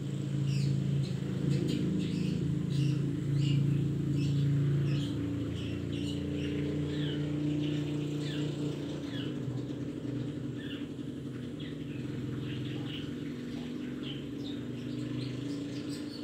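Long-tailed shrike (cendet) singing: a fast, continuous run of short, sharp, downward-slurred chirping notes, the kind of song used as a lure to provoke other cendets. A steady low hum runs beneath, strongest in the first five seconds.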